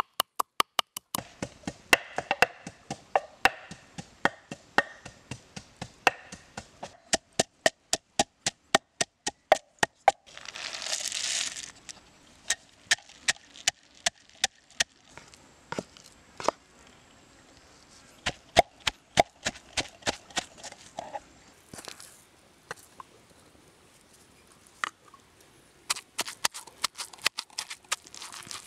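Wooden pestle pounding lemongrass, shallots, chilies and peanuts in a wooden mortar into a curry paste: sharp knocks at about two to three a second, with a brief rush of noise about eleven seconds in.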